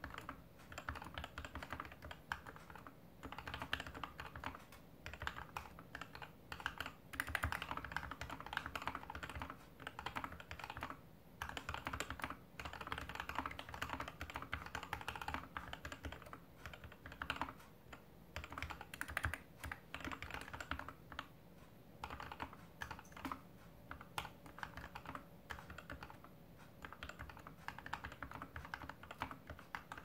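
GK61X mechanical keyboard with lubed and filmed Gateron Red Ink V2 linear switches, DSA keycaps and a stainless steel plate, typed on slowly on a desk mat: a steady run of keystrokes with no pauses of more than a moment.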